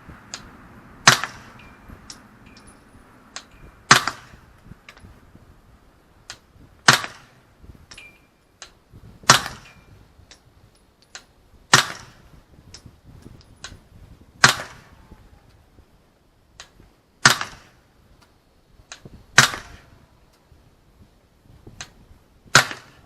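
Slow, deliberate gunfire: nine loud shots spaced about two and a half to three seconds apart, with fainter cracks of other shots between them.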